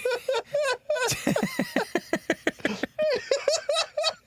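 People laughing hard at a joke: a fast, high-pitched run of ha-ha-ha pulses, several a second, that overlap in the middle of the laugh.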